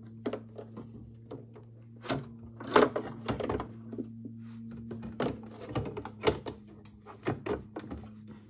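A plastic embroidery hoop being fitted onto a Brother PE800 embroidery machine's carriage, with the fabric and clips handled around it: a string of clicks, knocks and rustles, the loudest about three seconds in, over a steady low hum.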